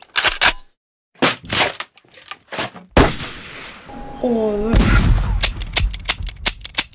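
Gunfire sound effects: several short volleys of sharp shots, then a fast string of shots near the end.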